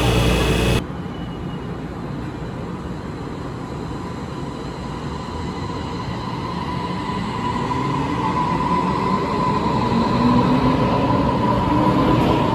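A Taiwan Railway electric train running up an underground station platform, its rumble growing louder as it nears. In the second half a motor whine rises steadily in pitch.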